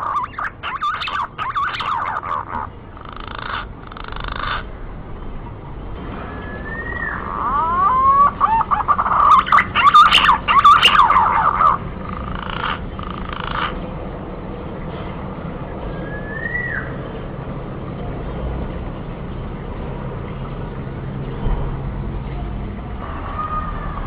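Green pigeon (punai) calling: bouts of wavering, gliding whistled notes with a rough edge. The first comes at the start, the longest and loudest about a third of the way in, and a short phrase follows past the middle, over a steady hiss.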